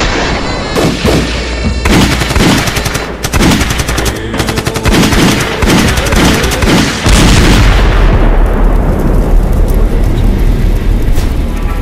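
Rapid gunfire, many shots a second from several guns, then about seven seconds in a large explosion whose deep rumble carries on to the end.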